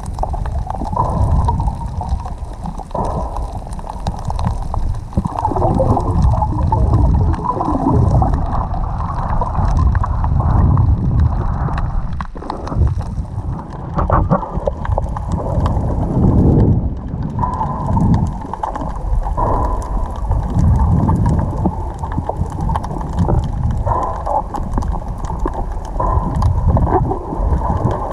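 Muffled underwater water noise: water rushing and gurgling, surging and easing irregularly as a free diver swims just below the surface.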